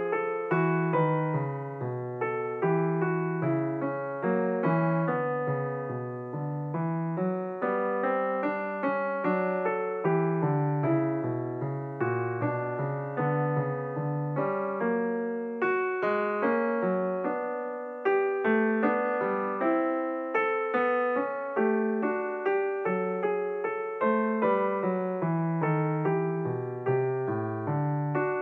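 Background piano music: a steady, unbroken run of struck notes, each fading away, over a slow-moving bass line.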